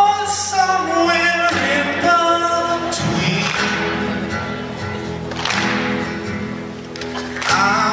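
A man singing live into a microphone, with long held and gliding notes, over a strummed acoustic guitar.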